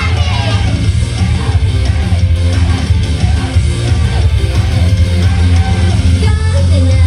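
Live rock band music led by electric guitar over bass, an instrumental passage without vocals.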